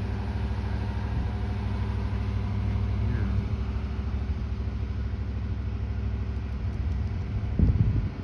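Vehicle engine running steadily with a low hum; a brief low thump near the end.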